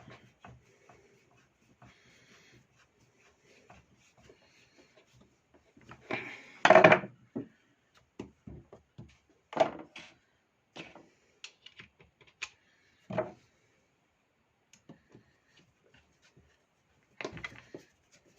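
Parts and tools of a Makita electric chainsaw being handled on a workbench during disassembly: scattered small knocks and clicks, with a louder burst of clatter about six to seven seconds in and a few single sharper knocks later.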